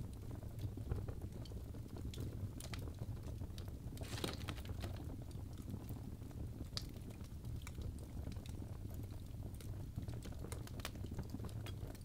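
Birch logs burning in a fireplace, crackling with frequent irregular pops and snaps over a steady low rumble, with a quick cluster of pops about four seconds in.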